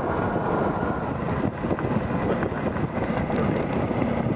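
Steady road and engine noise inside the cabin of a moving car.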